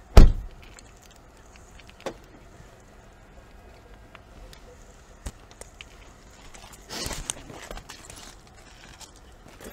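Car door of a Peugeot hatchback slammed shut, a single loud thump just after the start, followed by a sharp click about two seconds later. About seven seconds in there is a brief rustling clatter.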